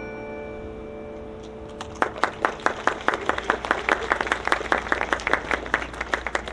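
The last notes of the tower bells ring out and fade. From about two seconds in, a crowd applauds.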